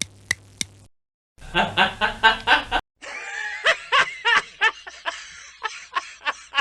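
A voice laughing in a run of short repeated bursts, about three or four a second, in the second half.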